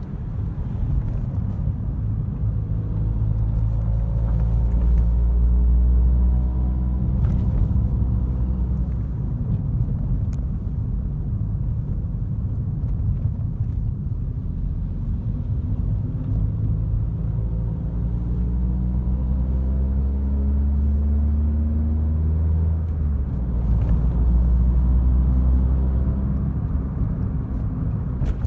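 Chevrolet Corsa's engine heard from inside the cabin, a deep rumble that rises in pitch as the car accelerates through the gears, about three seconds in and again about fifteen seconds in.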